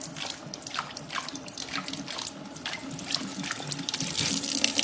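Water running and splashing, with many small drips and spatters.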